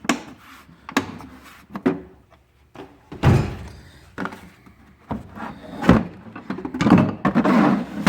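Hand tools being picked up and set down in a tool box drawer: a series of sharp knocks and clunks, with longer rattling clatters about three seconds in and near the end.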